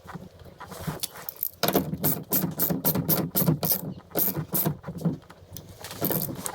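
A ratchet wrench with a 19 mm socket clicking in rapid strokes as it runs down and tightens the steering-shaft nut on a new steering hub.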